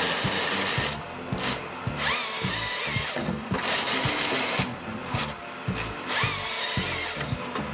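Background music with a steady beat and a short phrase repeating about every two seconds.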